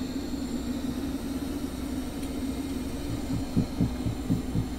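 Roborock Q Revo robot vacuum running on carpet with a steady hum. In the second half, soft low pulses come about five a second.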